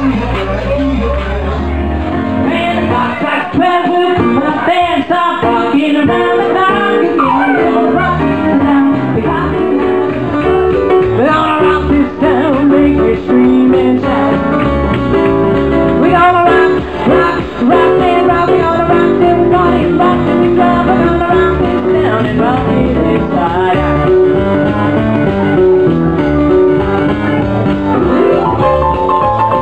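Live music played on an electronic keyboard: a full-band sound with melody, chords and bass.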